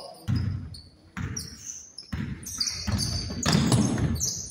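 Basketball bouncing on a hardwood gym court during play, several bounces about a second apart, with short high squeaks over them.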